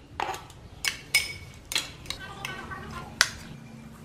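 Kitchen knife knocking and scraping on a wooden cutting board and clinking against a ceramic bowl: about five sharp knocks and clinks, some with a short ring, the loudest a little after three seconds in.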